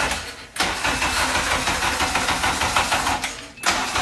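Honda K-series four-cylinder engine on old E85 being cranked over by the starter in a cold start, an even chugging of about four to five beats a second without catching. The cranking stops briefly twice, just after the start and near the end, then resumes.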